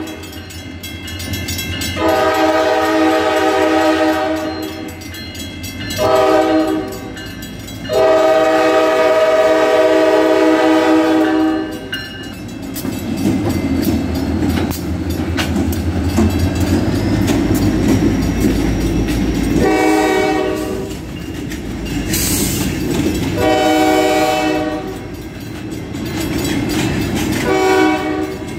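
Freight train diesel locomotives blowing their air horn at a grade crossing: a long blast, a short one and another long one. A heavy low rumble follows as the engines pass, then three shorter horn blasts as the freight cars roll by over the crossing.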